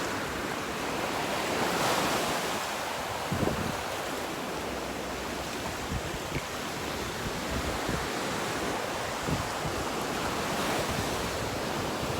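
Ocean waves washing onto a beach, a steady surf hiss that swells about two seconds in, with wind buffeting the microphone now and then.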